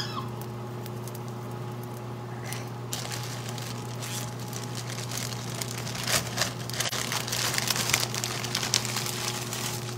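Pan of boiling soup on a stove crackling and sizzling, setting in about three seconds in and growing busier, over the steady hum of a range hood fan.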